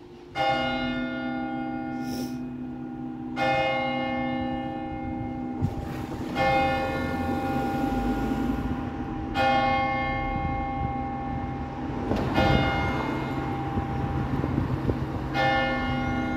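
Church tower bell striking the hour: six strokes about three seconds apart, each of the same pitch and ringing on until the next, with the bell's low hum sustained beneath.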